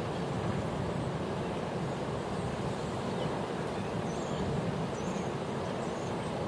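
Steady rushing of the River Yeo in flood: swollen, fast brown water churning below a weir after heavy rain.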